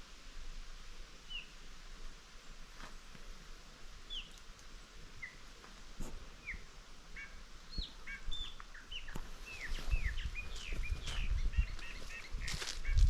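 Small birds chirping: short, quick down-slurred chirps, a few at first, then coming thick and fast in the second half. Low rumbling sets in near the end.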